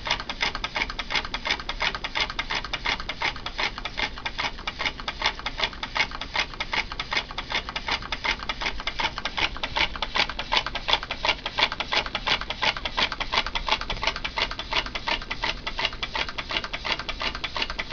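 Homemade tin-can Stirling engine heated by a tealight and running steadily, its copper-wire crank and piston linkage clanking in a fast, even run of clicks.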